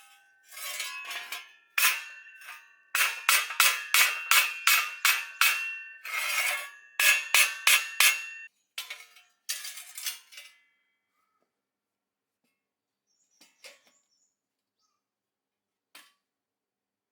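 Metal being struck with a hammer: sharp ringing clangs, some in quick runs of about four a second. They stop about ten seconds in, leaving only a few faint clicks.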